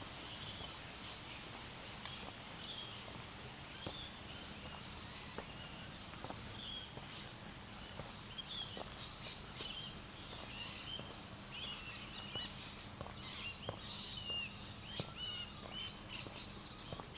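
Many small birds chirping in short overlapping calls, growing busier in the second half, with faint footsteps on a path about once a second.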